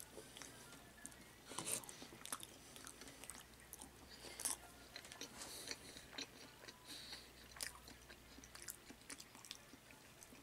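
A person chewing a mouthful of salad quietly, with a few faint clicks of chopsticks against the bowl.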